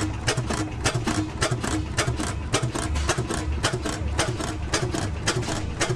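Antique vertical stationary gas engine running steadily, with even, rapid clicking about five times a second over a low rumble.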